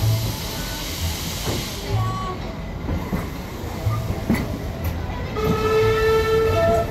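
Steam-hauled passenger train rolling slowly out of a station, heard from the carriage: low thumps about once a second over a steady rumble and hiss. About five and a half seconds in, a steady whistle sounds for about a second.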